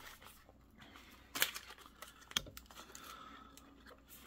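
Small cardboard box being opened and a clear plastic bag pulled out of it: soft rustling and crinkling of plastic, with a couple of sharp clicks, the loudest about two and a half seconds in.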